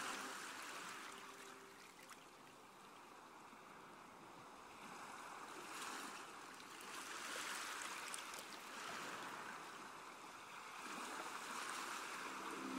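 Faint wash of sea water, swelling and fading every few seconds like waves.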